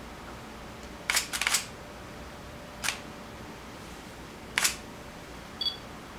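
Pentax K-50 DSLR shutter firing in live view: a quick clatter of several clicks about a second in. Two single clicks follow, and near the end comes a short two-tone electronic beep, the camera's focus-confirmation beep.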